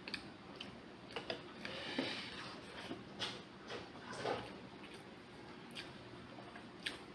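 Faint, irregular clinks of a spoon against ceramic bowls during a meal, about ten light clicks spread unevenly.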